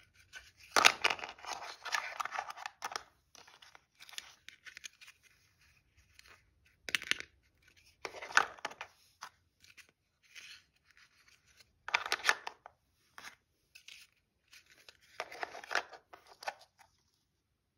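Plastic toy pizza slices being pulled apart with a rasping rip and set into a plastic toy pan with light clacks, in about five short bursts with quiet pauses between; the longest rip comes about a second in.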